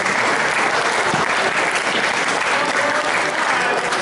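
Spectators applauding, many hands clapping steadily.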